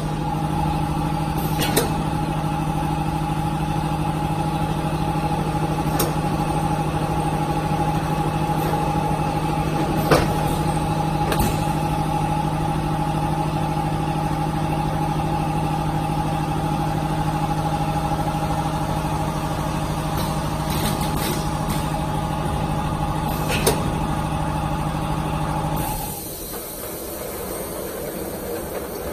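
Multi-head piston liquid filling machine running through a fill cycle: a steady, loud hum with a few sharp clicks. The hum cuts off suddenly near the end as the fill cycle finishes, leaving a quieter running noise.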